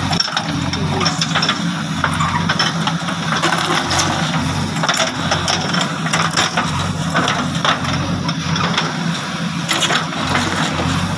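JCB 3DX backhoe loader's diesel engine running steadily under hydraulic load as the backhoe arm works, with frequent sharp clanks and knocks from the bucket and its linkage scraping and striking soil and the road edge.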